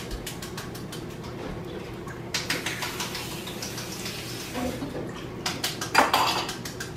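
Cold water running from a kitchen tap for about two seconds, amid light clicks and knocks of handling.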